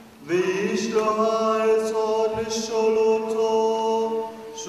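A solo male voice chanting a liturgical reading, holding long notes on a nearly steady pitch, with a pause for breath about four seconds in.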